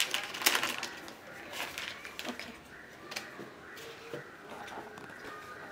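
Plastic pen packaging rustling and crinkling as watercolour pens are taken out, with light clicks and taps of the plastic pens being handled and set down; busier in the first second, then scattered soft clicks.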